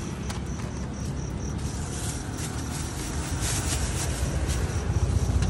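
A thin plastic bag crinkling and rustling as it is handled, mostly in the second half, over a steady low rumble and a thin high whine.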